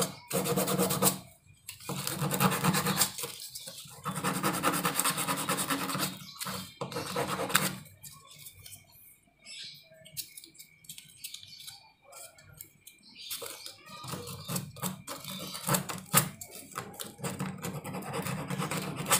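A small block of angsana wood rubbed back and forth by hand on a sheet of sandpaper: gritty scratching in several runs of strokes, dying down to a quiet pause around the middle, then lighter, scattered scrapes near the end.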